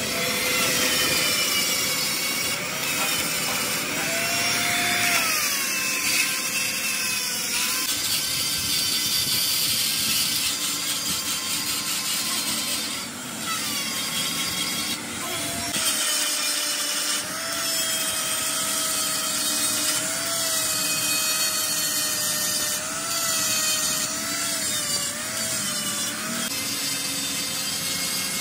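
Electric angle grinder grinding the inside of a cast-iron tractor differential housing. Its motor whine rises and falls as the disc bites into the metal.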